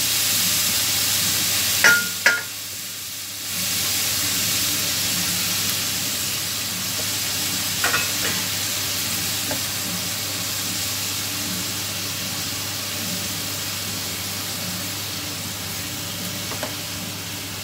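Small diced pieces of veal sizzling steadily as they sear in a hot frying pan, stirred now and then with a silicone spatula. There are a few sharp knocks of the spatula against the pan about two seconds in and again around eight seconds.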